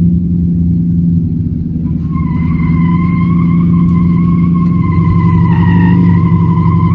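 Porsche Cayenne's engine running under load as it crawls up a steep sandstone ledge, a steady low rumble. About two seconds in a steady high-pitched whine joins it and holds, wavering slightly.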